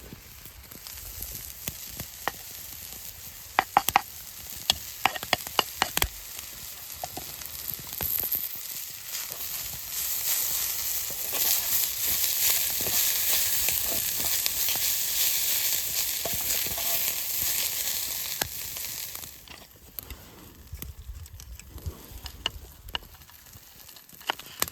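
Food frying in a carbon steel pan over a wood fire: a run of sharp clicks and knocks of a utensil against the pan, then strong sizzling from about eight seconds in that cuts off abruptly near twenty seconds.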